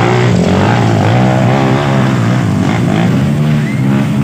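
Dirt bike engine revving hard under load on a muddy hill climb, its pitch rising and falling repeatedly as the rider works the throttle.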